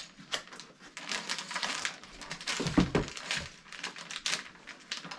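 Paper and plastic packaging rustling and crinkling as small items are handled, with a dull knock about three seconds in.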